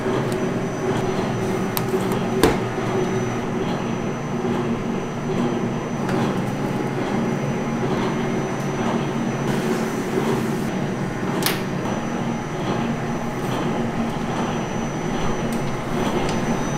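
Steady machinery hum with a faint high whine, broken twice by sharp clicks of metal baking trays being handled on a stainless steel table and slid into a steel rack.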